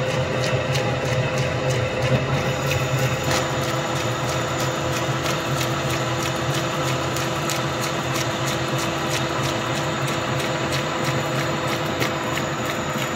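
Okuma lathe turning a steel shaft under a cutting tool: a steady mechanical hum with a few held tones, and a regular light ticking at about three a second.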